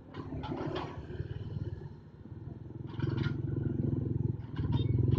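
Komatsu mini excavator's diesel engine running under hydraulic load as the boom and bucket work, growing louder from about three seconds in, with a few short metal clanks. A motorbike passing on the road adds its engine.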